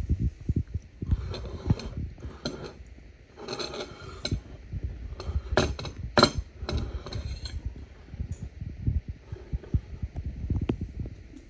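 Dishes and cutlery clinking a few times, the sharpest clinks about five and a half and six seconds in, over low bumps and rustling from a handheld phone.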